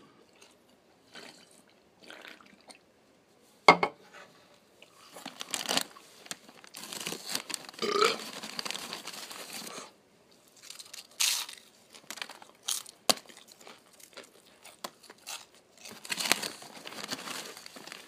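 Loud eating close by: a snack wrapper or bag crinkling and tearing, with crunchy chewing, in irregular bursts. A sharp click about four seconds in, then a long stretch of dense crinkling.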